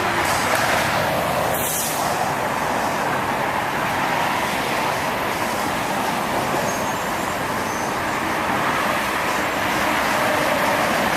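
A steady, even roar with no separate booms, which the recorder takes for a strange sound coming from the sky.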